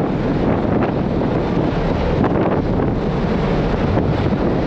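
Steady wind rumble on the microphone on the open deck of a moving ferry, over the rush of sea water along the hull.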